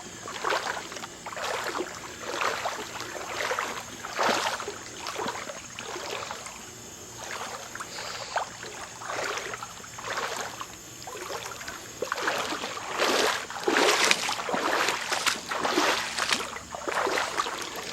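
Footsteps wading through a shallow creek: a run of irregular water swishes and sloshes, one every half second to a second, louder for a few steps near the end.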